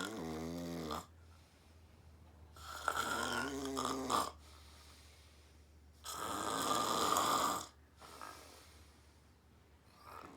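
Deep snoring from a sleeper: three loud snores about three seconds apart, the first two with a buzzing pitch, the third rougher and breathier.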